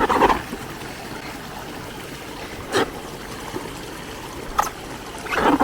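Water trickling and flowing steadily from a flooded rice field, with four short splashing sounds spread through it.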